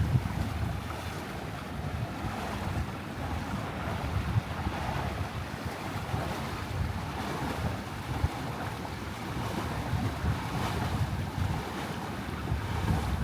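Wind buffeting the microphone over the rushing and lapping of water along a small sailboat's hull under sail.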